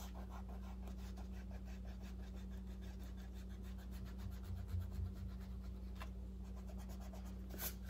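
White pencil eraser rubbed back and forth over pencil lines on drawing paper, a faint run of quick, closely spaced scrubbing strokes.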